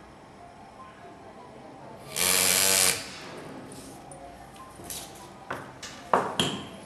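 Pneumatic engraver handpiece running in one short buzzing burst of under a second, about two seconds in, as the graver cuts into the metal cover. A few sharp clicks follow near the end.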